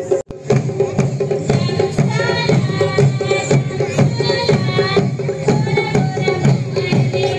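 Live folk music: a large barrel drum beaten with a stick in a steady rhythm of about two beats a second, with a melody over it. The sound cuts out for a moment just after the start.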